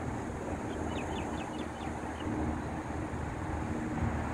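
A steady low outdoor rumble of wind on the microphone and a distant motor. About a second in there is a quick run of short, high chirps.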